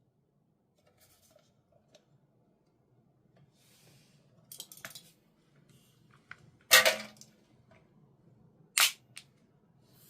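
Two sharp shots from a KJW Beretta M92 airsoft pistol, about two seconds apart, the first the louder. Several faint clicks come before and between them.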